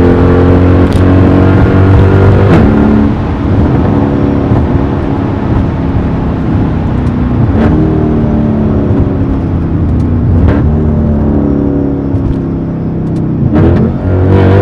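Mercedes-AMG E63 V8 exhaust under hard acceleration. The engine note climbs through the revs and falls back at four gear changes, with a sharp crack at each shift.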